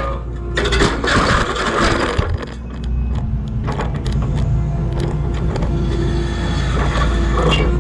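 Skid steer's diesel engine running steadily under load while its tooth bucket scrapes and breaks up a concrete slab, with a long grinding scrape from about half a second to two seconds in and a few sharp knocks of concrete later on.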